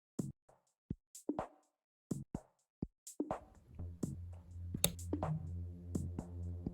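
Electronic background music: sparse drum-machine hits at first, then about three seconds in a deep bass line and synth chords come in under a steady beat.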